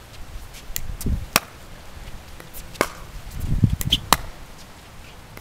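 Pickleball paddle striking a plastic pickleball: sharp pops, the three loudest about a second and a half apart, with fainter taps between them.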